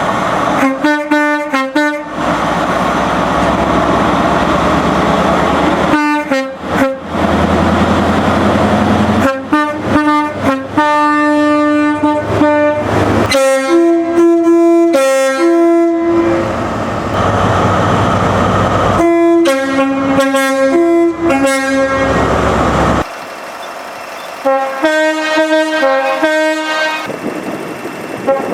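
Locomotive horns sounding repeated sequences of short and longer blasts, each a chord of several steady notes, some changing pitch from blast to blast. Between the blasts runs the loud rumble of passing trains.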